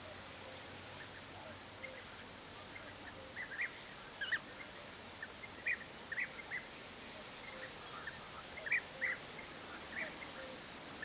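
European bee-eater calls: short high notes given singly and in quick pairs every second or so, over a steady background hiss.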